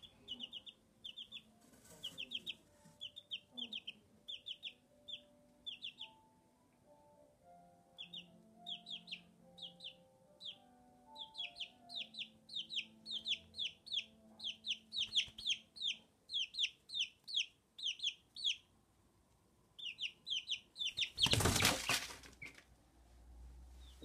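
A chicken chick peeping over and over: short, high, falling chirps in quick runs with brief pauses. Near the end a loud rustling noise lasts about a second.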